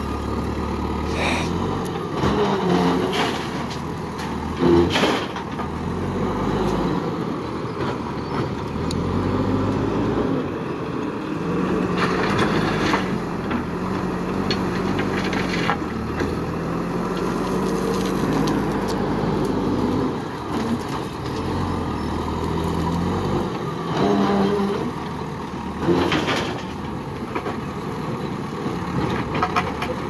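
JCB backhoe loader's diesel engine running and revving up and down as it works the hydraulics to dig and lift, with several clanks and rattles of the steel bucket and of soil and stones hitting the dump truck's bed.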